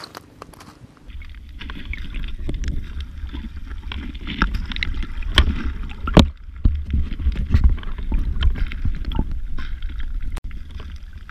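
Footsteps crunching on coral rubble for about a second. Then water heard through an underwater camera housing: a steady low rumble with scattered sharp clicks and crackles.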